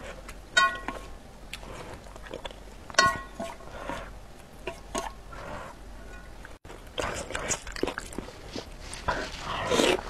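Close-miked eating sounds of enoki mushrooms and beef in spicy broth: chopsticks clink against the glass container twice, with soft chewing and small mouth clicks between, and a wet slurp swells up near the end as she eats straight from the container.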